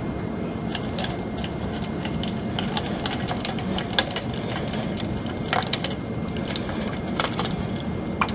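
Water trickling slowly from a plastic cup over a disc into a cup below. Scattered small clicks and taps of the cups and disc sit over a steady low hum.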